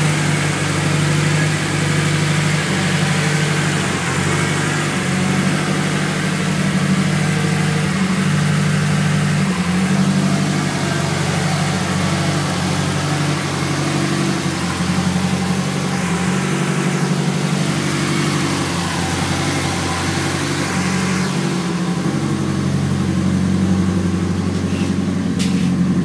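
Turbocharged Subaru STI flat-four engine (Garrett GTX35R turbo) idling steadily on a repaired exhaust with no leak, its pitch stepping up and down slightly now and then.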